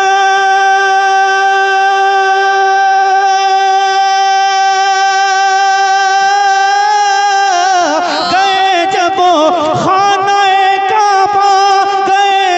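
A man singing a naat into a microphone, holding one long steady note for about seven and a half seconds, then breaking into wavering, ornamented runs of melody.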